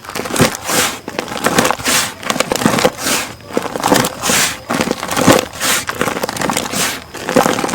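Gritty chunks of pure cement crushed and crumbling, a run of crisp crunches about two a second.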